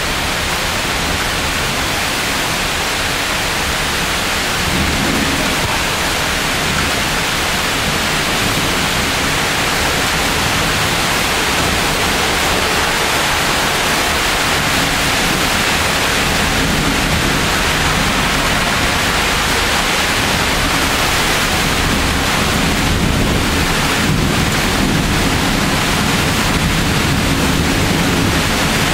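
Steady hiss of heavy rain in a thunderstorm, with low thunder rumbling about five seconds in and again through the last ten seconds or so.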